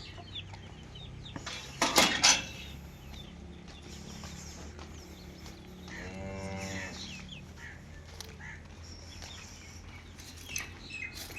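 A dairy bovine mooing once, about six seconds in, for about a second. A few sharp knocks around two seconds in are the loudest sounds, over a steady low hum.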